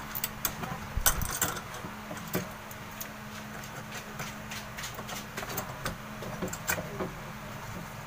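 Light clicks and knocks of a hand handling a washing machine's replacement drain motor and hooking the drain-valve cable onto its pull arm, over a steady faint hum.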